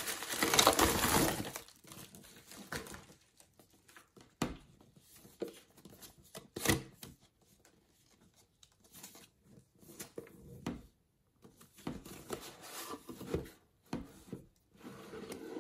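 Plastic bubble mailer crinkling and rustling as it is pulled off a box for about the first two seconds. Then sparse taps, knocks and light rustles of a cardboard watch box being handled, and near the end cardboard scraping as the red inner box is slid out of its white sleeve.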